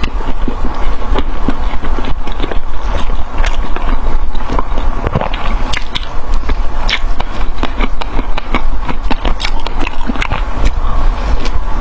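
Close-miked eating: irregular crunching, clicking chews and bites, over a steady low hum.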